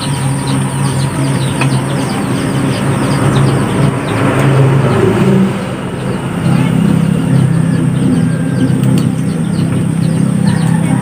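An engine running steadily, its hum dipping briefly about halfway through, with many quick bird chirps over it.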